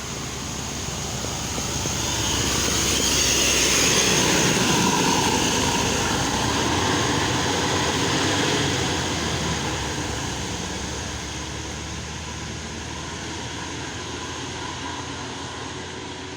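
A heavy road vehicle passing close by. Its engine and tyre noise swells to a peak about four seconds in, then slowly fades away.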